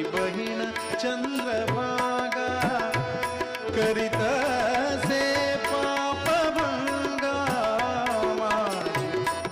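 Tabla playing in quick, dense strokes, the bass drum's pitch gliding up and down, under a male voice singing a wordless, ornamented melodic line over a steady drone. This is live Indian devotional (bhajan) music with a tabla and vocal exchange.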